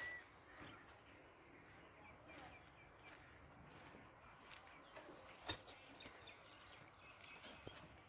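Faint farmyard ambience with scattered soft clicks and a few faint bird chirps, and one sharp click about five and a half seconds in.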